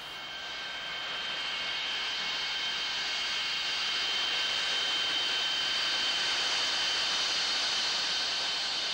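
Saab 37 Viggen's single Volvo RM8 turbofan running at taxi power as the jet rolls past along a road: a high steady whine over a rushing hiss, growing louder over the first few seconds as it comes closer.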